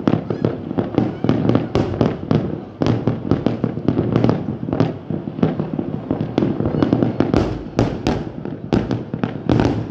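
Large aerial fireworks display: a dense, rapid run of overlapping bangs and bursts, several a second, with a heavier, deeper boom about seven and a half seconds in.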